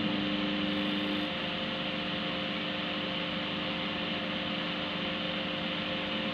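Microwave oven running with a newly fitted magnetron: a steady hum of the fan and transformer with a constant tone over it. Two lower tones from the start-up fade out about a second in.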